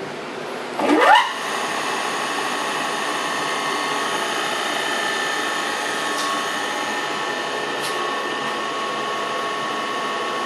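Knuth DRIM-30 drill press/milling machine's spindle motor switched on: a rising whine for about a second as it spins up. Then it runs steadily with an even whine.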